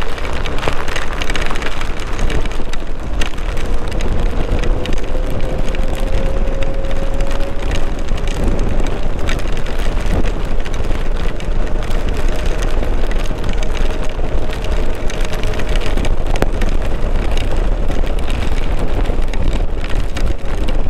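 Motorcycle ride in a heavy downpour: loud wind buffeting on the microphone and rain noise, with the Hero Xpulse 200's single-cylinder engine faint beneath, its note climbing slowly for a while.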